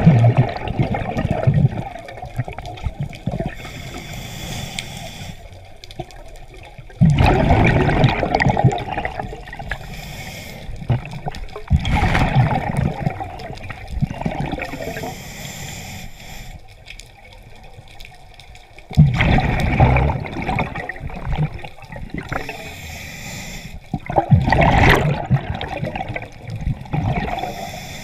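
Scuba diver breathing through a regulator underwater: bursts of exhaled bubbles rushing and gurgling past the camera every five to seven seconds, each preceded by a softer hiss of inhalation through the demand valve.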